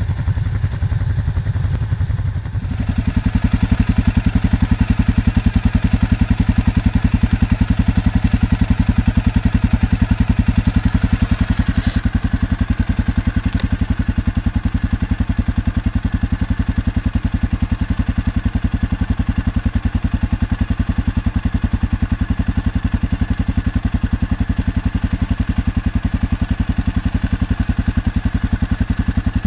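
ATV (four-wheeler) engine running steadily, a rapid even low pulse that gets louder about three seconds in.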